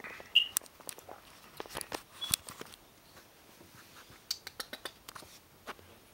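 Scattered clicks, taps and rustles of a phone camera being handled while it is moved onto a puppy lying on a blanket, with a short high squeak near the start.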